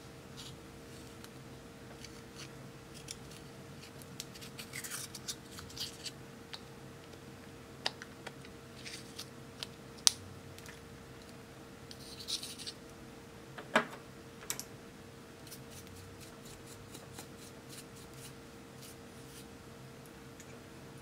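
A small metal tool scraping and crumbling pressed powder makeup out of a plastic compact: scattered scratchy scrapes and light clicks, with two sharp taps standing out about ten and fourteen seconds in. A faint steady hum sits underneath.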